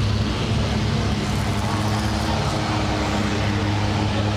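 Long-tail boat's engine running steadily at a constant low pitch, heard from on board.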